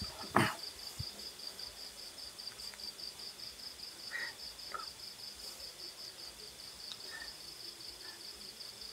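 Cricket chirping in a high, even, fast-pulsing trill. There is a short thump about half a second in.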